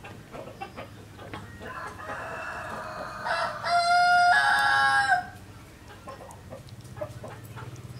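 A rooster crows once, starting about two seconds in with a rough, raspy onset, then a loud, clear held note that breaks off a little past the middle. Around it are faint, scattered small clicks and rustles of frogs being threaded onto a bamboo skewer.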